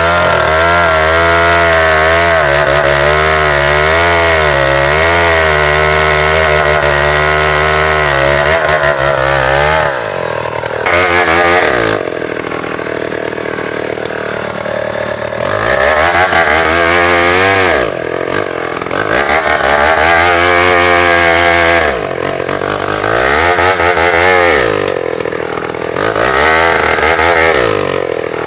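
Tecogold 700 chainsaw cutting bengkirai hardwood, running steadily at full throttle for about the first ten seconds. It then drops to a lower speed and revs back up several times, the pitch falling and rising with each throttle change.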